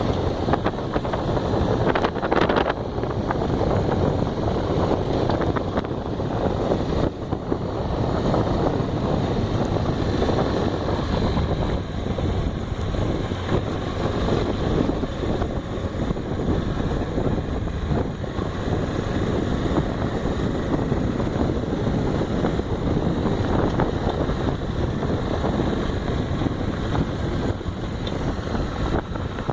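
Steady wind noise on the microphone of a moving Honda XRE motorcycle, with its engine running underneath.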